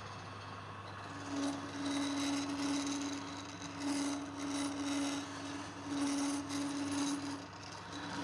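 Wood lathe turning a workpiece, with a tool scraping the spinning wood in repeated passes that start about a second in, over a steady hum.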